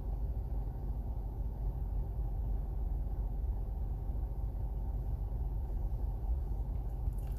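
Steady low background rumble with a faint hiss, even and unchanging, from the recording microphone's surroundings.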